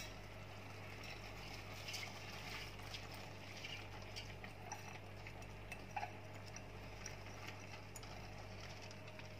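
Faint soft sliding and a few light clinks as soaked basmati rice is tipped from a glass bowl into a stainless steel pot, over a steady low hum.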